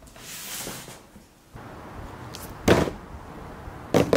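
A short scraping hiss of cardboard on a wooden tabletop, then a heavy thud about two and a half seconds in and a quick double knock near the end.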